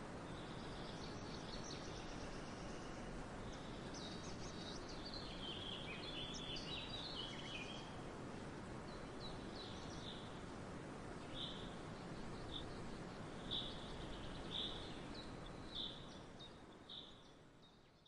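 Small birds chirping: a busy run of short high chirps in the first half, then single chirps about once a second over a steady outdoor hiss, fading out near the end.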